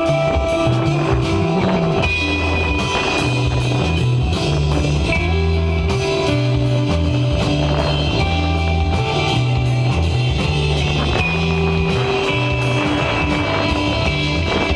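Desert rock band jamming live: electric guitar over a stepping bass line and a steady drum kit beat.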